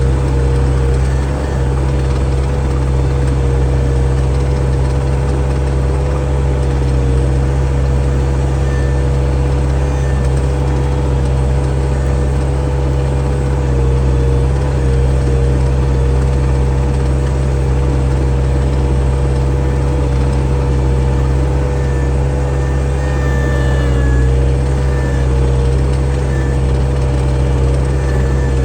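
Skid steer engine running steadily at a constant speed, with a steady whine over the low engine sound.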